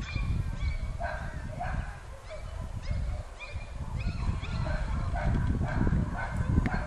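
Border collie puppies yipping and whimpering in short, high calls, roughly two a second, some sliding up or down in pitch, over a steady low rumble.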